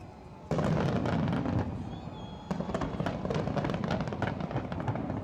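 Fireworks crackling densely, starting suddenly about half a second in, easing off briefly around two seconds and surging again, with music playing along.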